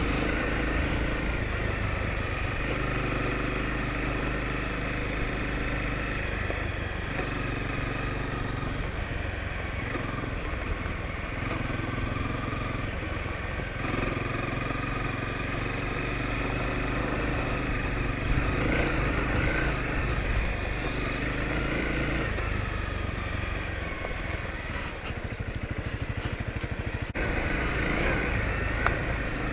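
Honda CRF250L's single-cylinder four-stroke engine running steadily while riding, its pitch shifting up and down every few seconds.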